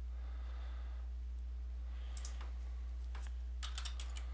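Typing on a computer keyboard: scattered key clicks starting about two seconds in, turning into a quick run of keystrokes near the end.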